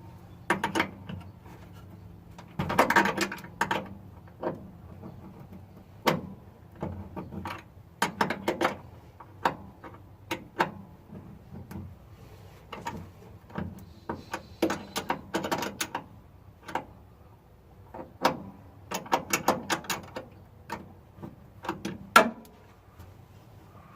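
Hand tools clicking and clinking on metal hardware in irregular clusters of short, sharp ticks, with one louder clack near the end, during work on a starter solenoid's terminals and mounting.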